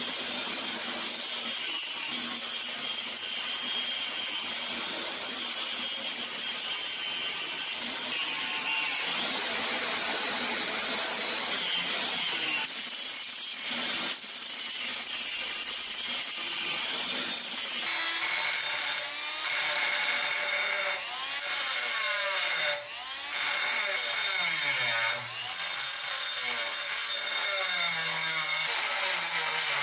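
A belt grinder running with a steel knife blade held against the belt, grinding steadily. About two thirds of the way through, a handheld rotary grinder with a small grinding stone takes over, grinding the blade steel with a whine that rises and falls in pitch and cuts out briefly a few times.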